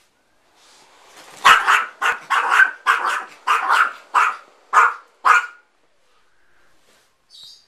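Small Yorkshire terrier barking in a rapid run of about a dozen sharp, high barks, starting about a second and a half in and stopping after about four seconds. It is alarm barking at an inflatable air bed it is afraid of.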